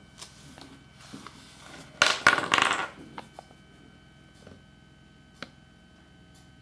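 Crinkling, crackling handling noise in short bursts, loudest for about a second starting about two seconds in, followed by a few small sharp clicks.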